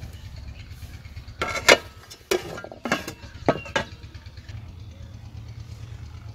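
Clanks and knocks of a wooden spatula and an aluminium lid against a large aluminium cooking pot as the pot is stirred and covered: about five sharp hits in quick succession, the loudest with a short metallic ring, over a steady low rumble.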